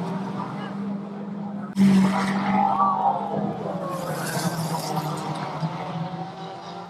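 Racing vans' engines running hard, with tyres skidding and squealing on the track. A sudden louder burst comes about two seconds in.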